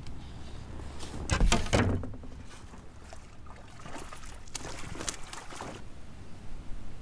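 A hooked fish splashing and thrashing at the water's surface beside a kayak as it is brought to the landing net, the loudest splash about a second and a half in, with a few shorter splashes past the middle.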